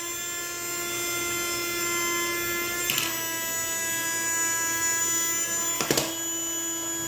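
Henry desk vacuum's small electric motor running with a steady high whine while it sucks up tiny debris. Two brief sharp clicks come about three seconds apart.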